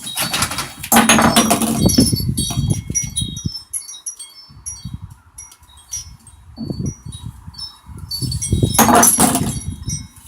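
Light, high-pitched metallic tinkling throughout, broken by two louder clattering hits about a second in and near the end: a metal fidget spinner thrown against a wine glass.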